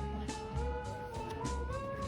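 Background music: a slow instrumental melody of held notes stepping gradually upward over a repeating bass line.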